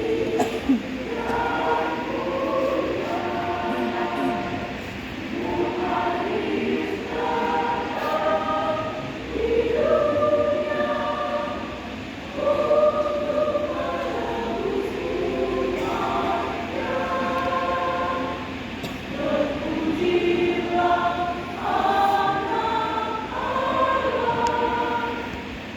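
Church choir singing a hymn in long, held phrases, with brief breaths between lines.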